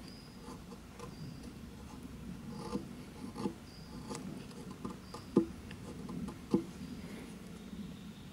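Gränsfors Bruk mini hatchet blade shaving thin curls down a wooden stick to make a feather stick: a run of short, irregular scraping strokes, with two sharper clicks past the middle.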